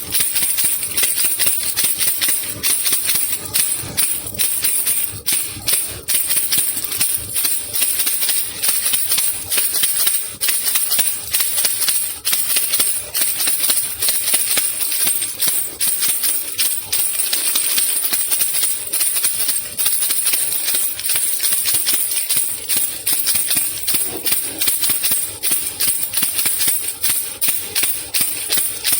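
Baby rattle (khulkhula) shaken without a break, a dense, irregular shaking rattle with no pauses.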